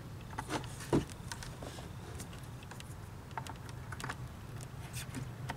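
Scattered small plastic clicks and taps as the back of a Honda CR-V tail light housing is handled and its wiring connector is pressed back into place, with one sharper click about a second in.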